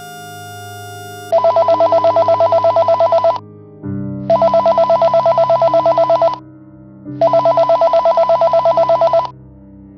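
Keypad mobile phone ringing: three trilling rings of about two seconds each, with short gaps between them.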